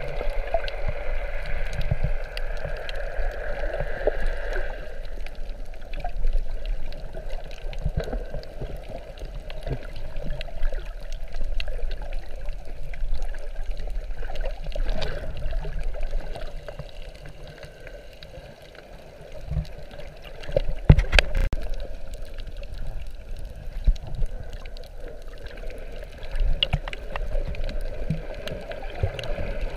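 Water gurgling and sloshing around a GoPro held underwater, muffled through the camera housing, with scattered knocks; the loudest knock comes about two-thirds of the way through.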